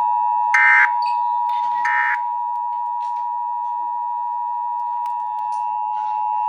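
Emergency Alert System two-tone attention signal: two steady tones near 853 and 960 Hz sounding together, with three short higher-pitched bursts over it in the first two seconds. It is the signal that an emergency alert message, here a required weekly test, is about to be read.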